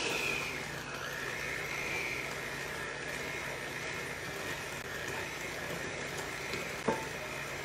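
Electric hand mixer running steadily at a slow setting, its beaters churning a thick batter of eggs, sugar and mascarpone in a glass bowl, with a steady motor whine. A single short tick about seven seconds in.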